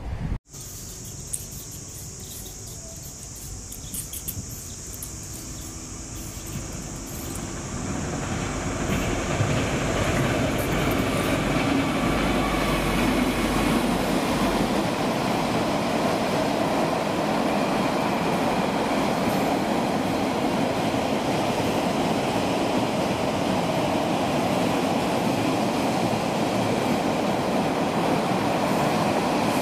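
Diesel-hauled container freight train approaching and rolling past close by. The rumble of the locomotive and the wagon wheels on the rails builds over about the first ten seconds, then holds steady as the wagons go by.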